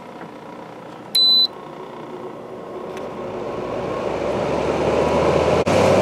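Midea window air conditioner's control panel beeps once, then its running noise builds steadily over a few seconds as the unit starts cooling and the GMCC compressor comes on, ending loud and steady.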